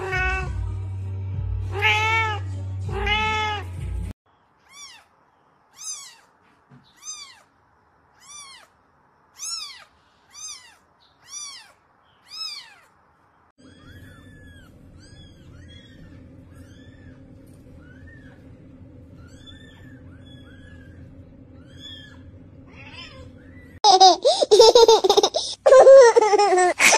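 Cats and kittens meowing, one clip after another. First a cat meows loudly a few times over a low hum. Then a kitten gives a quick run of short, high mews, then faint mews over a steady low hum, and near the end a kitten cries loudly and harshly.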